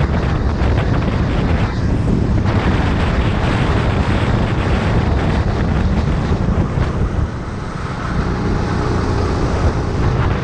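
Rental kart's engine running at racing speed, heard onboard under heavy wind buffeting on the camera microphone. The noise eases briefly about three-quarters of the way through, then picks up again.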